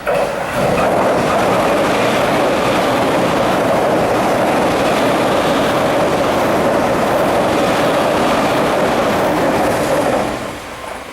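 Chuo Line limited express electric train passing close at speed: a steady loud rumble with wheel clatter that starts suddenly, holds for about ten seconds, and falls away near the end.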